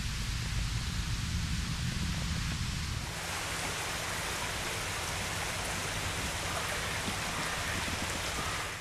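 Steady outdoor hiss with a low, flickering rumble in the first three seconds. The sound changes abruptly about three seconds in to a more even hiss.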